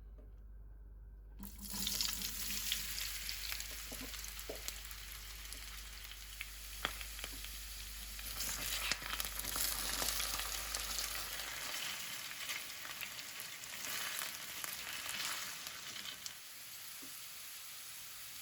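Food frying in hot oil in a pan, a dense sizzle that starts suddenly about a second and a half in, with a few sharp clicks scattered through it.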